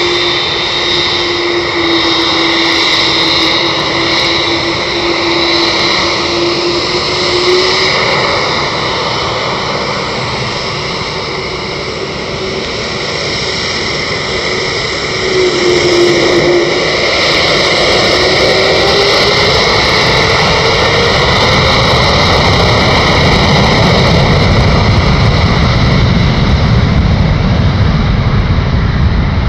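Boeing 787-8 Dreamliner's twin turbofan engines whining steadily as the jet taxis, with a lower tone that slides up and down. A deep rumble builds over the last several seconds as the engines spool up for the takeoff roll.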